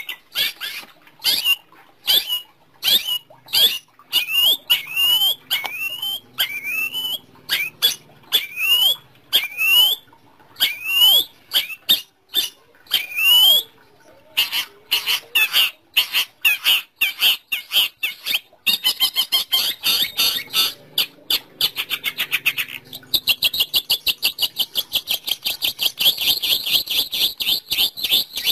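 Bird-trapping lure call for the long-tailed shrike (cendet): a recording of harsh, repeated rising call notes. Past the middle the notes crowd into fast chatter, and they become a continuous rapid rattle near the end.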